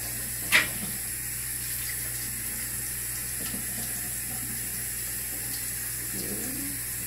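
Bathroom sink tap running steadily into the basin, with one short sharp sound about half a second in.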